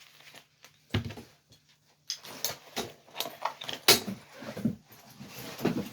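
Rescue harness hardware being handled as the harness is put on: a knock about a second in, then irregular clicks, clinks and rustles from its steel rings, buckles and webbing.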